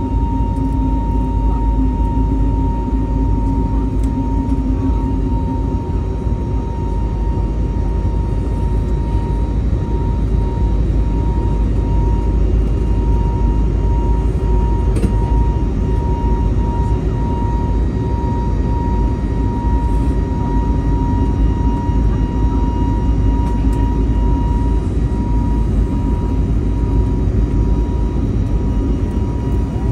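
Cabin noise inside an Airbus A320neo airliner with its engines running: a steady, dense rumble of engines and airflow, with a thin steady whine above it.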